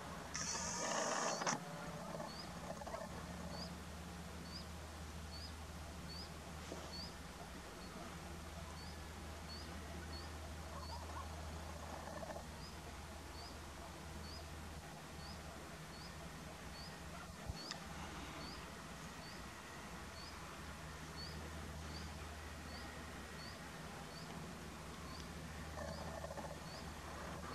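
A steady low hum with a short high chirp repeating about once a second, from a small animal calling; a brief rustling burst about a second in.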